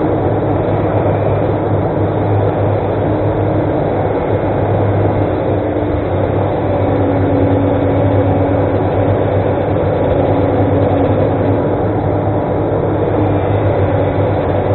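Excavator's heavy diesel engine running steadily at a constant speed, a deep hum with higher tones that rise and fall now and then.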